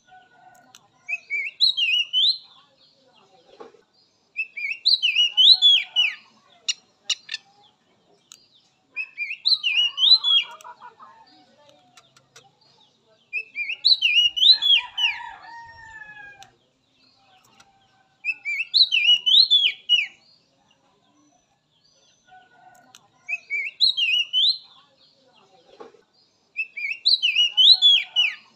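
Oriental magpie-robin (kacer) singing a short phrase of clear whistled notes that dart up and down, repeated about every four to five seconds, seven times. A few sharp ticking notes follow some of the phrases.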